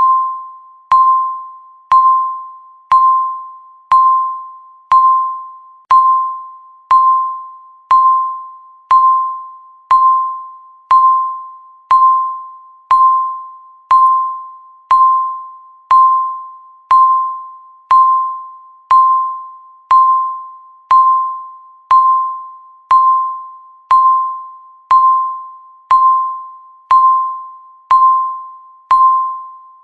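Countdown timer beeping once every second: a single electronic tone, each beep starting sharply and fading away before the next.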